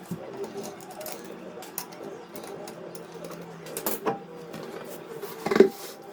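Scattered light metallic clicks and clinks of tools or car parts being handled, with one louder clank about five and a half seconds in, over a steady low hum.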